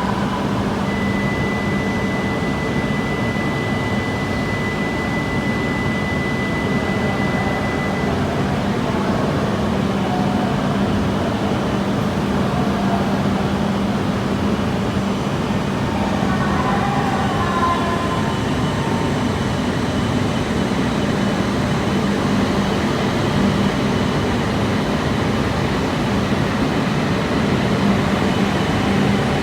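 Shinkansen station platform noise: a steady hum and rumble of trains and station equipment, with a steady high tone held from about a second in until about eight seconds, and faint wavering tones about halfway through.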